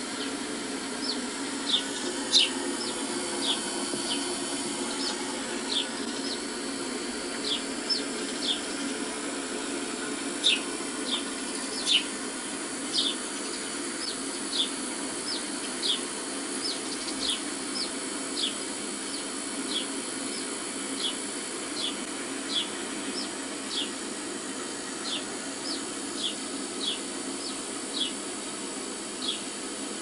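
Sparrows chirping from a bird video playing on a TV: short, sharp chirps about once a second, over a steady low hum.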